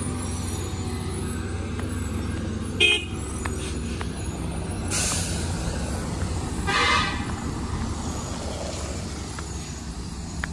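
Road vehicle engines running with a steady low rumble, with horn honks over them: a short toot about three seconds in and a longer honk about seven seconds in. A hiss starts suddenly about five seconds in and fades away.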